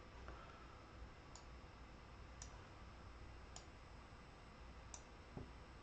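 Near silence broken by faint computer mouse clicks, four single clicks about a second apart, and a soft low thump near the end.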